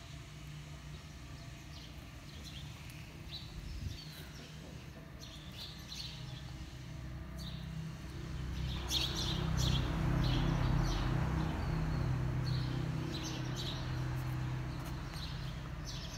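Short high bird chirps scattered throughout, over a low steady hum and rumble that swells about halfway through, becomes the loudest sound for a few seconds, then slowly eases off.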